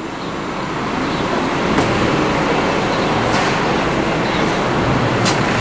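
Steady city traffic din, heard from a high hotel balcony, swelling over the first couple of seconds and then holding even.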